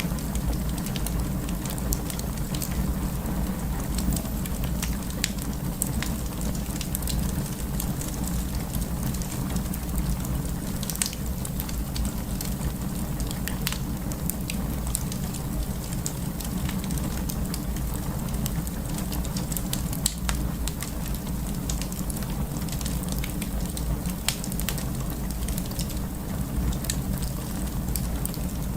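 Wood fire burning, with a steady low rumble and irregular sharp crackles and pops from the burning wood.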